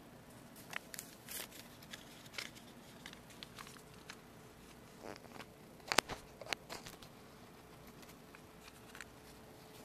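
Quiet room tone: a faint steady hum with scattered small clicks and taps, the sharpest about six seconds in.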